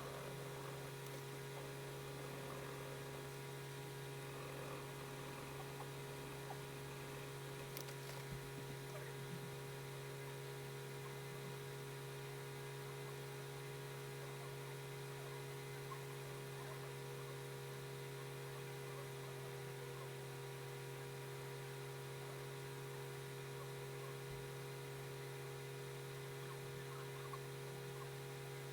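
Steady low electrical hum with several thin steady tones above it, and a couple of faint ticks about eight seconds in.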